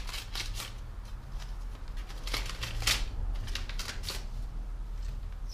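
Paper rustling in short bursts as a small envelope is opened by hand and a card is pulled out of it.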